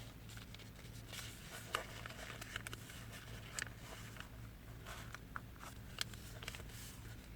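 Square origami paper being folded in half by hand: faint scattered paper rustles and light taps as the edges are lined up and the crease pressed, over a steady low hum.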